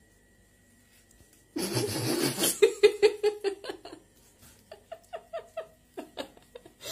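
A person laughing in quick rhythmic bursts, starting suddenly with a loud breathy burst about a second and a half in, pausing briefly, then laughing again in short pulses.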